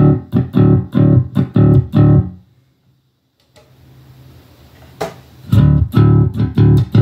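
Jackson JS1M electric bass in drop D played through a Fender Rumble 25 V3 bass combo: a repeated low riff of evenly picked notes, about four a second, that stops about two seconds in. After a gap with faint amp hiss and a click as a switch on the amp is pressed, the same riff starts again near the end, as the amp's overdrive is switched between off and on.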